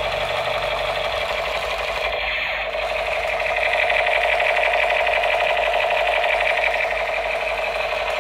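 Battery-powered toy AK-47 rifle playing its electronic rapid-fire sound, a steady, fast rattle.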